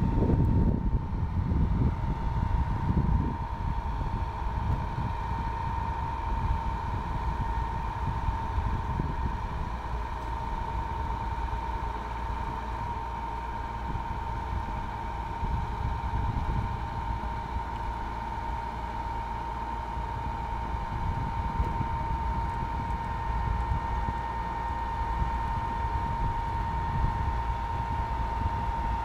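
Samart Kaset Yont Giant sugarcane harvester running steadily with a constant whine over a low rumble as its loaded cane bin is raised to tip into a truck. Wind buffets the microphone in the first few seconds.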